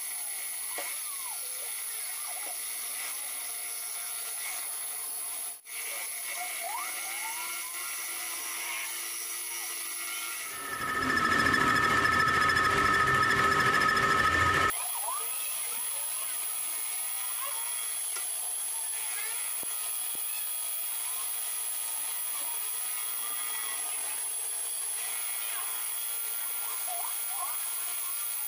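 Metal lathe running while a tool bit turned by the spindle chuck cuts a half-round recess into the end of a steel tube clamped on the carriage, with faint intermittent squeals from the cut. For about four seconds in the middle the cutting is much louder and rougher.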